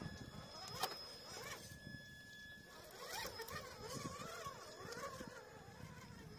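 Electric motor and gearbox of an RC crawler truck whining faintly, the pitch rising and falling as the throttle changes, with one sharp click about a second in.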